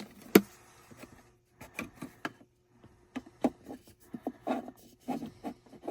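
Plastic parts of a console organizer tray being handled and fitted into a car's center console: a sharp click about half a second in, then a run of light irregular taps and clicks.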